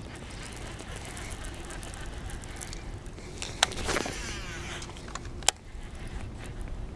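A fishing rod and reel being cast: a sharp click, a brief swish as the rod comes through and line pays out, then another sharp click from the reel, over low handling and wind rustle.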